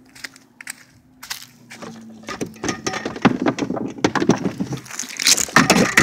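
Crunching and rustling of footsteps over dry leaves and dirt, growing louder and busier from about two seconds in, with close scraping and knocking near the end.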